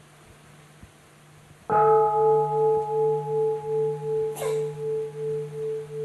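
A bowl-shaped meditation bell struck once, about two seconds in, then ringing on with a wavering, slowly fading tone. A short sharp sound cuts in briefly about halfway through.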